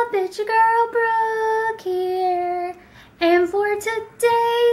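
A girl singing a melody in held, steady notes, with a short break about three seconds in.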